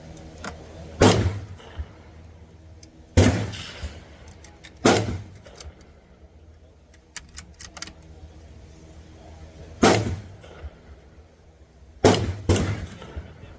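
.22 rimfire rifle gunshots, six sharp reports spaced a few seconds apart, the last two in quick succession.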